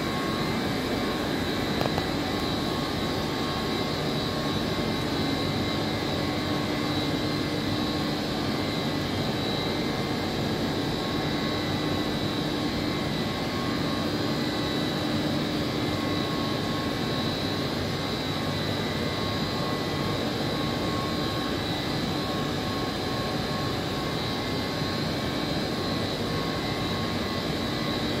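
Trane screw chiller running in a plant room: a steady machine drone with several held whining tones over a constant hiss.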